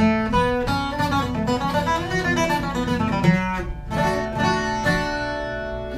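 Twelve-string acoustic guitar playing a quick picked requinto run in D, single notes following one another every fraction of a second, with a few fuller chords near the end.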